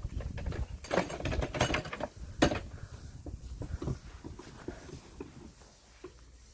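A run of knocks and clatter, loudest about two and a half seconds in and thinning out toward the end, over a low rumble.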